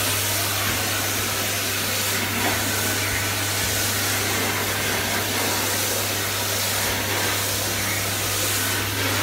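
An electric blower running steadily: an even rushing sound with a constant low hum underneath.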